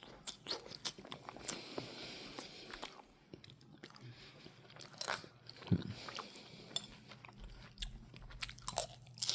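Close-up biting and chewing of a bean burrito topped with pork rinds, with irregular crunches and crackles as the rinds break.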